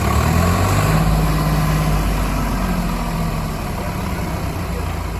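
Heavy diesel engine running, a little louder over the first couple of seconds and then settling to a steady drone.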